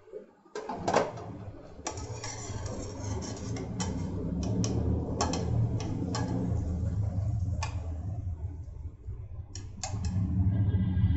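Masala gravy bubbling in a covered kadhai on a high gas flame: a steady low rumble with sharp pops and spatters under the glass lid every second or so. The rumble grows louder near the end.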